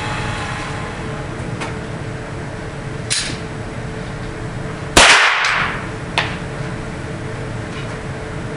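Pistol shots at an indoor shooting range: three sharp reports echoing off the walls. The first, about three seconds in, is quieter, the second, about five seconds in, is by far the loudest with a long ringing tail, and a third follows about a second later.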